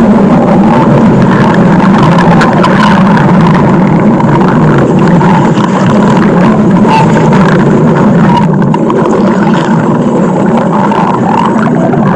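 Stomach growl: a loud, continuous low rumble that does not let up.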